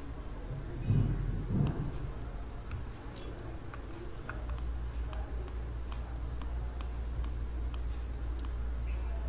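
Light, evenly spaced ticking, about two or three ticks a second, under a low steady hum that comes in about four seconds in. Two soft low thumps come just after the first second.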